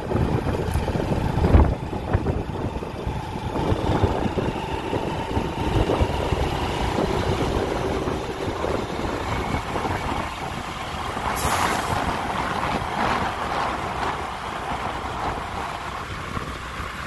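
Road and engine noise while travelling along a highway, with heavy lorries passing close by. A short hiss cuts in about eleven seconds in.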